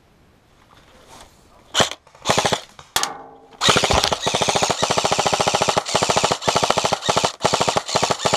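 Airsoft rifle firing on full auto. A few single shots come about two seconds in, then long rapid bursts from about three and a half seconds on, broken by brief pauses.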